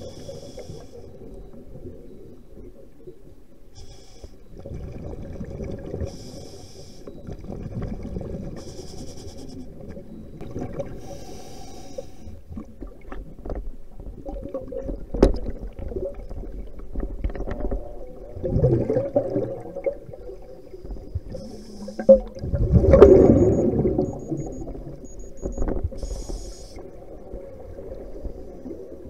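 Muffled underwater noise recorded by a submerged camera: a low water rumble with scattered knocks, faint hissy patches every few seconds, and two louder swelling surges in the last third.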